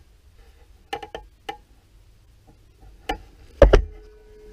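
Handling knocks and clicks as a camera is picked up and carried in a garage: scattered short knocks, the loudest pair about three and a half seconds in, then a faint steady hum.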